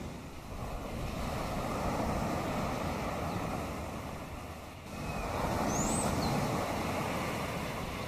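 Waves washing ashore, swelling and easing in two surges with a brief lull just before the middle. A single short, high bird chirp sounds about six seconds in.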